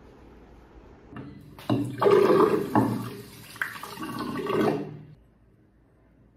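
Tap water running hard and splashing into a bathroom sink and bottle, starting about a second in and shutting off after about four seconds.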